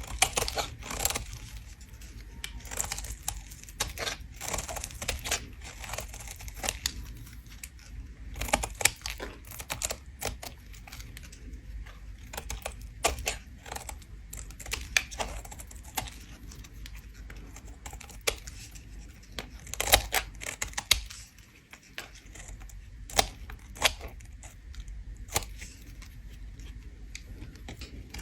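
A bar of soap being scraped, giving irregular crisp crackling and crunching scrapes, some louder than others.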